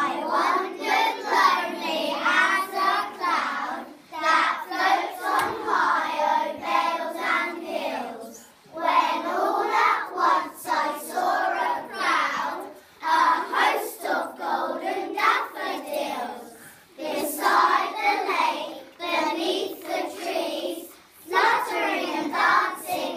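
A group of young children singing together, in phrases of about four seconds with short breaks between them.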